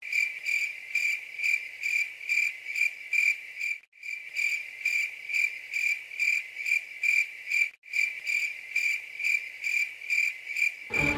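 Cricket chirping in an even rhythm of about three high chirps a second, broken by two very short gaps.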